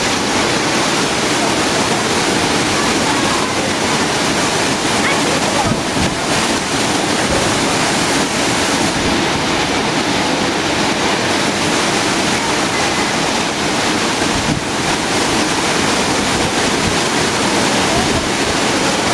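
Waterfall pouring, a loud, steady rush of falling water that does not let up.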